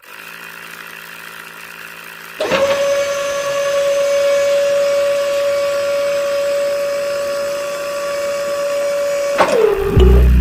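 Small DC motor of a homemade toy drilling rig or pump switching on with a steady high-pitched whine, running for about seven seconds, then winding down in pitch as it is switched off. A quieter steady hum comes before it starts.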